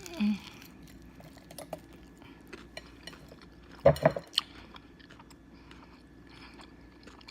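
A person chewing crunchy cornflake-crusted baked chicken wings close to the microphone: scattered small crunches, with a brief louder sound about four seconds in.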